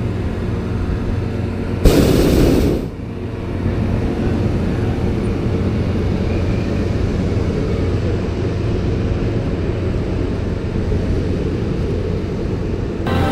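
Hot air balloon's propane burner firing once for about a second, starting suddenly about two seconds in, over a steady low rumble.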